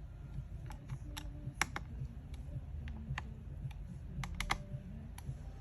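Small sharp clicks and taps at irregular intervals, about a dozen: a small screwdriver and screws being worked into a laptop's internals during reassembly.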